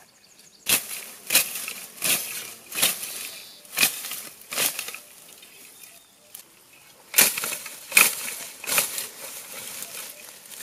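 Sickle cutting tall grass by hand: sharp swishing strokes about every three-quarters of a second, six in a row, then a pause and three more.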